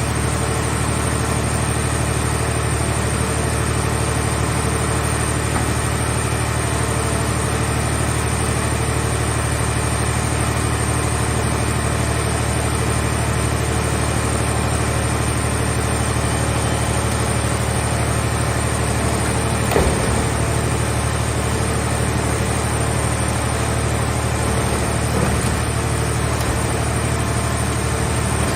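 Engine of a hydraulic scrap car baler running steadily, with a single short knock about two-thirds of the way through.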